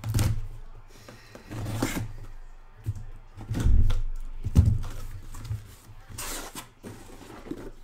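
A white cardboard box being cut open with a blade along its taped seam, then its lid and flaps lifted: a series of separate cardboard scrapes and rustles, with a dull thump about four and a half seconds in.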